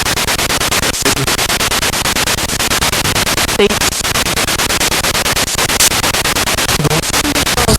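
Spirit box radio sweeping rapidly through stations: loud static chopped into quick pulses, with short snatches of broadcast sound poking through a couple of times.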